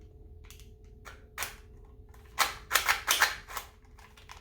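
Plastic spring airsoft pistol (Walther PPQ replica) being handled, its slide worked back and forth: one sharp click about a second and a half in, then a quick run of clacks in the middle.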